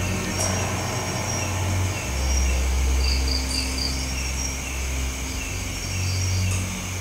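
Night insects chirping in a steady, evenly repeating chorus, with a low rumble underneath that swells for a few seconds in the middle.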